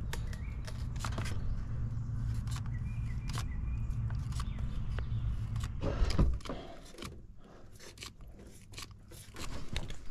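Footsteps crunching and scraping over the ground, with scattered clicks over a steady low rumble. About six seconds in there is a thump and the rumble stops, leaving light clicks and rustling.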